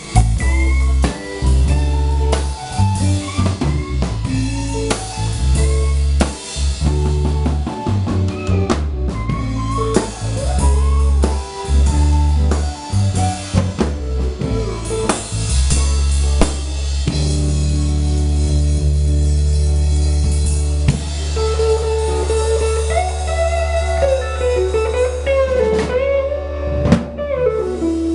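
Live band playing an instrumental passage on electric guitars, bass guitar and drum kit.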